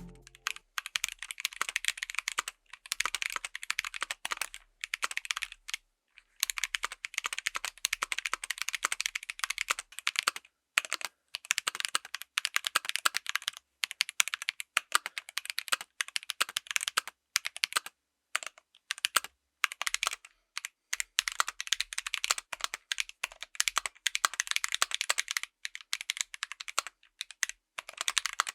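Typing on a full mechanical keyboard fitted with tactile switches: fast runs of crisp keystrokes, broken by a few short pauses.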